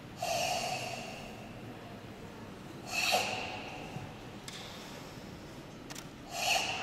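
Forceful, hissing exhalations forced from the throat, three of them about three seconds apart, each starting sharply and tailing off: the controlled ibuki breathing of the Goju-ryu Sanchin kata.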